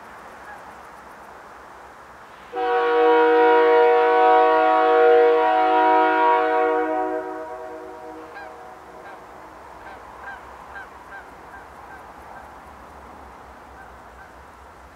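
Air horn of a CN GE diesel locomotive sounding one long blast, a chord of several steady notes. It starts abruptly a few seconds in, holds for about four and a half seconds, then trails off. A faint low rumble lies underneath.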